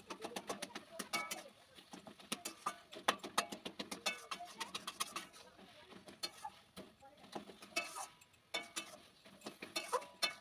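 A flat metal spatula scraping and clinking against a metal kadai as it stirs a thick mash of taro leaves. The knocks and scrapes come irregularly, many with a brief metallic ring.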